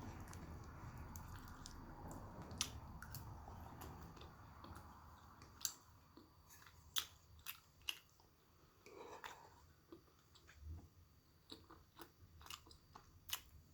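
Close-up chewing of food, with short, sharp crunching clicks scattered through it, more of them in the second half.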